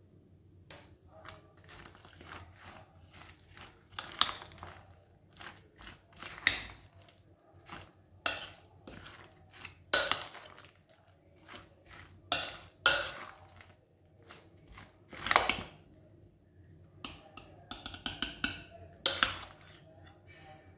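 A spoon stirring creamy fruit chaat in a glass mixing bowl, knocking and scraping against the glass in irregular sharp clinks, a few of them loud.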